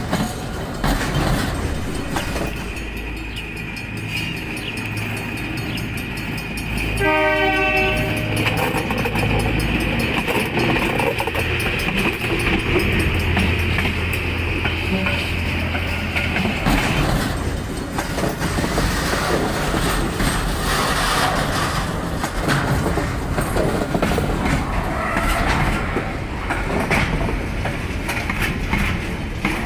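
Freight train of container wagons passing close by, its wheels rumbling and clacking steadily over the rails. For the first half a level-crossing bell rings steadily, then stops about 17 seconds in.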